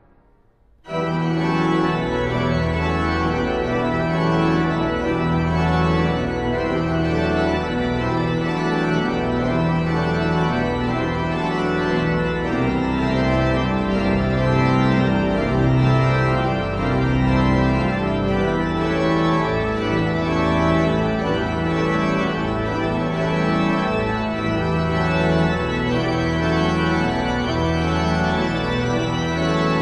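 Church pipe organ of Sct. Morten's Church, Randers, playing a chorale prelude. It enters suddenly less than a second in, after near silence, with sustained full chords over held low pedal notes that change every second or two.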